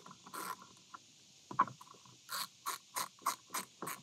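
A 7/16 ratcheting wrench clicking as it loosens the bolt holding a kayak's steering handle. There are a couple of ratchet strokes at first, a sharp click about a second and a half in, then a quick run of about six strokes near the end.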